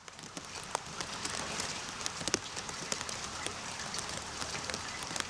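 Steady rain, with individual drops tapping sharply on a hard surface, starting abruptly.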